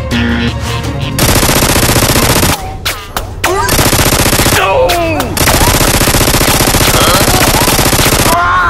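Rapid machine-gun fire sound effect for a toy blaster firing, in three bursts: a short one about a second in, a shorter one in the middle, and a long one of about three seconds near the end. Short gliding sounds fall between the bursts.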